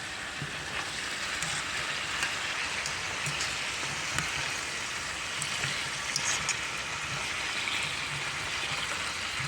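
Oxtails sizzling steadily in hot oil in a pan as they brown.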